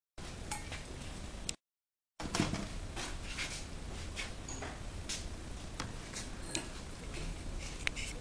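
Scattered light clinks and taps of glassware and a clamp being handled while a large borosilicate flask is fitted up. The sound drops out to dead silence twice near the start.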